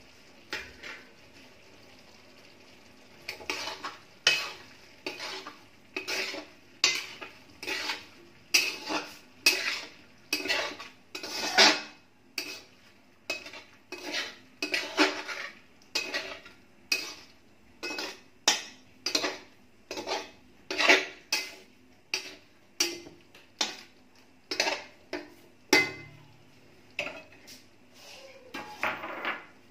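Long metal spatula scraping and stirring through frying onions in a large metal kadhai. The strokes start about three seconds in and come in a steady run of roughly one to one and a half per second.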